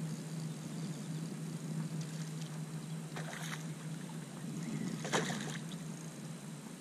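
Hooked redfish thrashing at the surface, splashing twice, about three and five seconds in, over a steady low hum.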